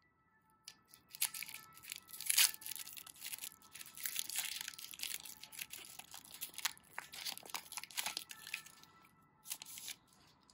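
A foil Pokémon booster pack being torn open and its wrapper crinkled, with the loudest rip about two and a half seconds in, then more crinkling as the cards are worked out of the pack.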